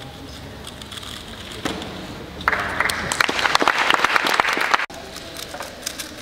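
Audience applauding, a dense patter of clapping that swells about two seconds in and then cuts off suddenly, leaving a low background murmur.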